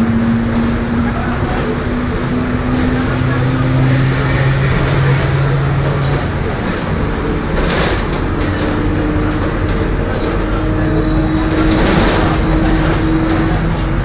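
Mercedes-Benz OF-1721 bus driving at low engine revs with the steady whine of a droning differential, its pitch shifting a few times with road speed. A brief rattle about halfway through and another near the end.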